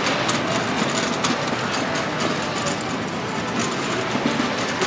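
Busy city street ambience: a steady hum of traffic and other vehicles, with scattered small clicks and knocks.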